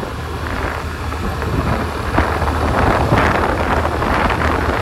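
Wind buffeting a helmet-mounted microphone while riding a Suzuki Avenis scooter, over a steady low hum; the wind noise grows louder about two seconds in.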